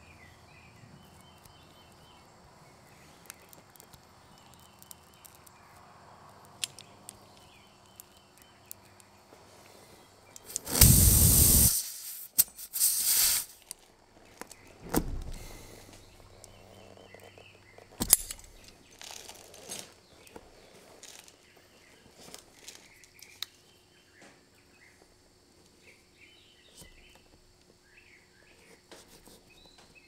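Hand work of plugging a lawn mower tire with a plug kit: small clicks and handling of the insertion tool, with two loud rushing bursts about 11 and 13 seconds in and a shorter one a couple of seconds later as the plug tool is worked into the tread. Birds chirp faintly throughout.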